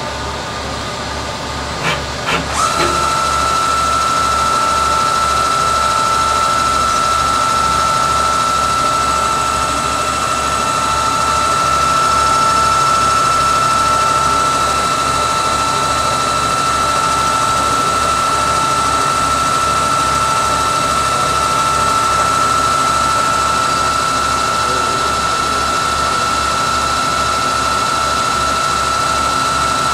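Tsugami B018B-III Swiss-type CNC lathe running a dry-run cycle. A high steady whine comes up quickly about two and a half seconds in and holds, over a constant machine hum, with a couple of clicks just before it.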